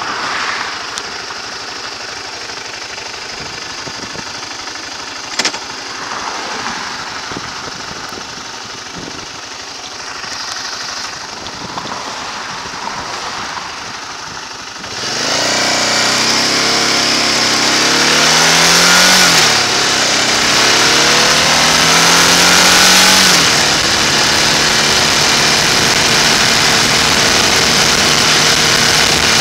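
Motorcycle riding at speed. For the first half there is a quieter haze of wind and road noise, with a single click about five seconds in. About halfway the engine comes up loud and accelerates, its pitch rising and dropping back twice, then it settles into a steady cruise.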